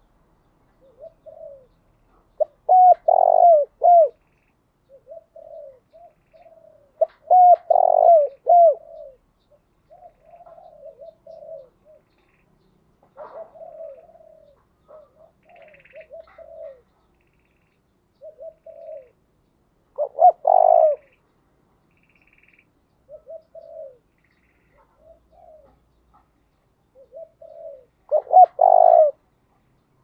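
Spotted dove cooing: repeated phrases of low, rounded coos, four of them loud at intervals of several seconds, with softer coos between them. Faint higher bird chirps come in briefly twice in the middle.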